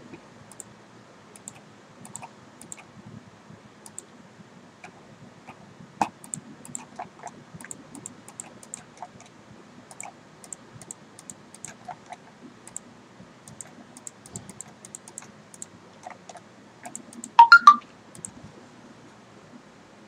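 Computer mouse clicking at an irregular pace, a few clicks a second, as polyline points are picked one after another, over a faint steady hum. About seventeen seconds in comes a brief, louder clatter.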